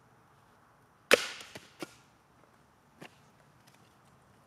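A heavy Aranyik cane machete chopping a short upright piece of firewood on a stump block: one loud, sharp crack about a second in as the blade drives through. A few lighter knocks follow, likely the split pieces falling, with another knock about three seconds in.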